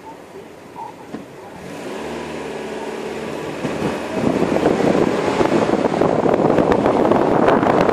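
Car engine pulling away from a standstill, its note rising as it accelerates. From about four seconds in it is covered by loud rushing wind and road noise as the car gathers speed.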